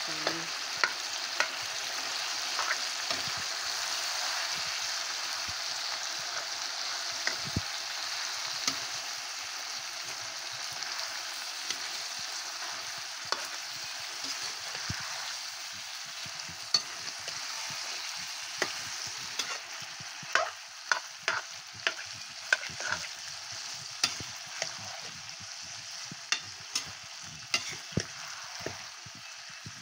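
Buffalo meat sizzling as it fries in oil in a metal karahi, a steady hiss. A metal spatula stirs it, knocking and scraping against the pan, the clicks coming thick and fast from about two-thirds of the way in.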